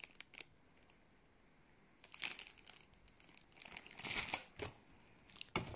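Clear plastic packaging bag crinkling as it is handled, in irregular bursts after a quiet first two seconds, with a sharper crackle near the end.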